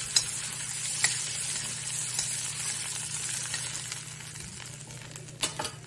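Butter sizzling in a cast-iron kadai with bay leaves frying in it, stirred with a metal spoon that clicks lightly against the pan a few times. The sizzle fades toward the end.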